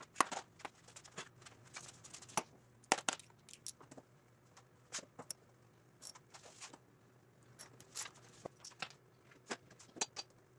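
Scattered, irregular light clicks, taps and short rustles of hands handling small parts and tools, among them a clear plastic tub of small white parts, over a low steady shop hum.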